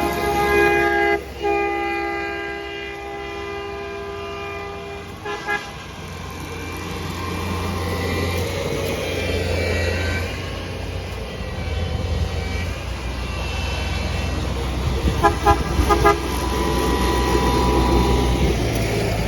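Railroad maintenance train horns sounding at passing railfans: a long blast of a chord of several notes with a brief break, a couple of short toots about five seconds in, then the low rumble of the equipment rolling by. Near the end come about four quick toots in a row and a fainter held chord.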